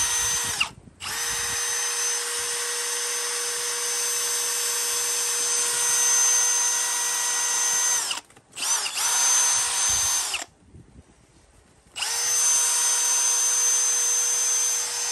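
Milwaukee 2902 M18 compact brushless hammer drill/driver running with no load in four trigger pulls, the longest about seven seconds. Each run is a steady high whine with a buzzy rattle, rising in pitch as the motor spins up and falling as it winds down.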